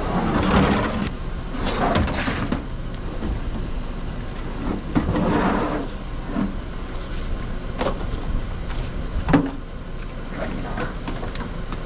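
Purchases being moved around in a pickup truck bed: rustling and handling noises with several sharp knocks, the loudest about nine and a half seconds in, over a steady low hum.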